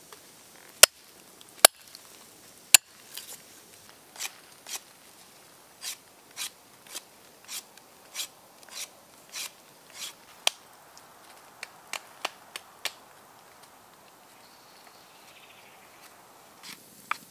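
Three sharp chops of a hatchet cutting a dead branch against a stone, then a knife shaving a wooden stick in steady strokes, a little under two a second, ending in a few lighter scrapes.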